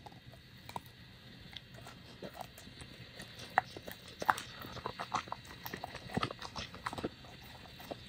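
Pit bull licking and biting chocolate-coated ice cream bars on sticks: wet licks and mouth smacks with sharp clicks. The clicks are sparse at first and come thicker and louder from about three and a half seconds in.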